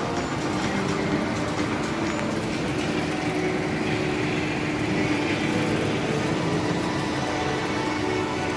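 Steady ambient hum of a large, nearly empty railway station concourse, with faint background music playing.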